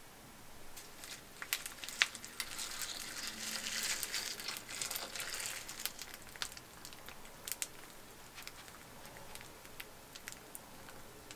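Milk poured onto a bowl of fresh Rice Krispies: a soft hiss of pouring for several seconds, with the puffed rice crackling and popping in scattered faint clicks that go on after the pour stops.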